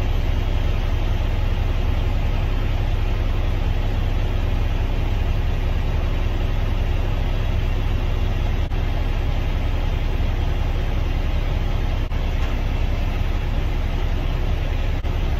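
Semi truck's engine idling steadily, a low rumble heard from inside the cab.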